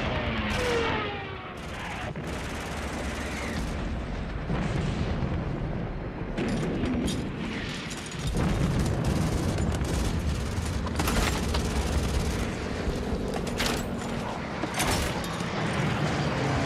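Sustained anti-aircraft machine-gun fire mixed with explosions over a continuous battle din, growing louder about halfway through.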